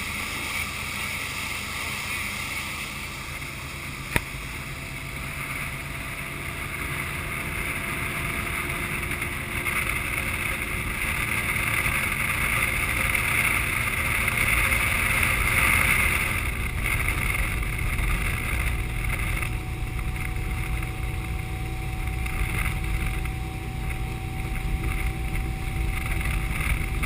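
Powerboat underway: a steady engine drone mixed with the rush of wind and water, with one sharp click about four seconds in. The sound grows a little louder through the middle.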